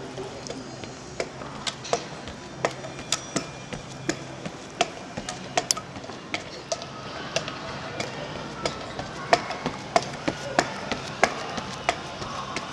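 Running footsteps on a rubber indoor track: sharp, quick footfalls about two to three a second, from a runner on sports running prostheses.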